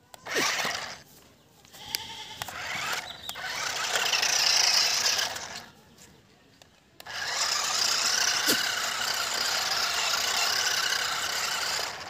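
Toy remote-control stunt car's small electric motors and gearboxes whining as it drives over dirt, in three spells: briefly at the start, again for about four seconds, then steadily through the second half after a short stop.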